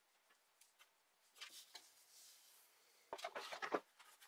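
Faint handling sounds of the 3D printer's bottom cover plate and legs being fitted to its base: a couple of light clicks, then a short cluster of taps and scrapes about three seconds in.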